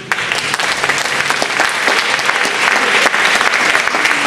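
Audience applauding: dense clapping that grows a little louder over the first second, then holds steady.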